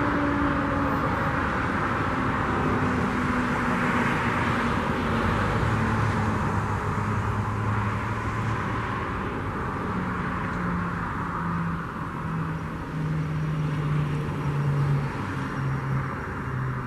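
Federal Signal 2001-SRNB electromechanical siren winding down at the end of its steady alert tone, its pitch sliding slowly lower and fading over the first several seconds. Steady road-traffic noise runs underneath, with a low vehicle engine hum in the second half.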